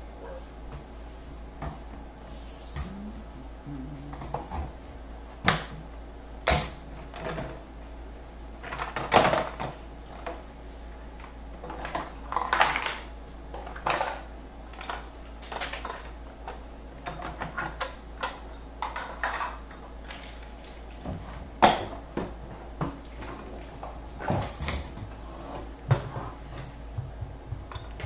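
Hard plastic parts of a Bauer 14-gallon shop vacuum knocking and clattering irregularly as the hose and accessories are taken out of the plastic drum and the lid is set on it, with scuffs and rustles between the knocks.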